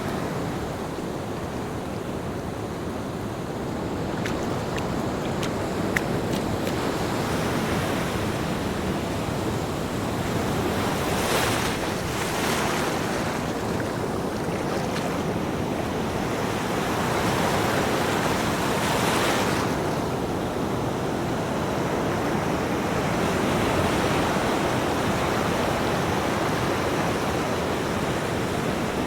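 Ocean waves breaking and washing on a shore, a steady rushing surf that swells and eases, with a couple of brighter, hissing washes partway through and again a little later.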